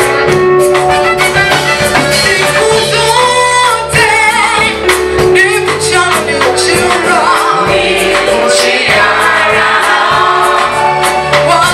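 Gospel song: a choir singing over drums and bass.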